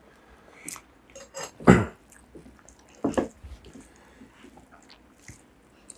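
Eating sounds from close up: scattered wet mouth smacks and chewing, with a louder smack about two seconds in and another about three seconds in, and soft squishing of rice and curry being mixed by hand.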